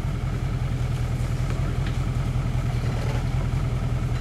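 Engine of an off-road side-by-side running steadily without revving, a low even hum.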